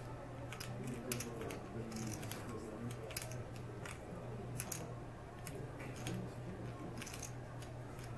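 Scattered sharp clicks of poker chips and playing cards being handled at a poker table, over a faint murmur of voices and a steady low hum.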